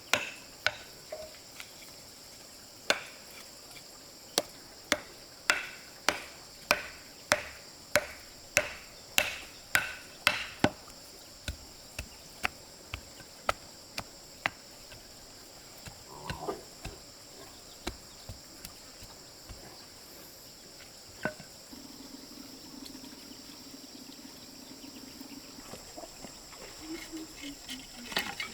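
Repeated chopping strikes, about one or two a second for the first ten seconds or so, then sparser, lighter knocks. A steady high insect drone runs throughout.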